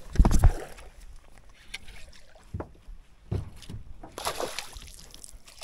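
Hollow knocks and thumps on a small metal boat's deck and hull, loudest just after the start, then a few lighter knocks, and a brief splash of water about four seconds in as a hooked fish swirls at the surface beside the boat.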